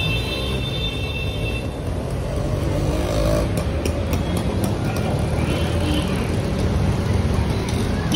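Street traffic: a steady, low rumble of vehicle engines running.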